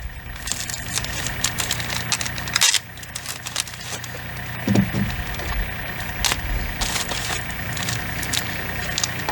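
House wrap tape being pulled off the roll and pressed down around a wire on synthetic house wrap: irregular crackling, tearing and rustling of the plastic sheet and tape, with a low steady hum underneath.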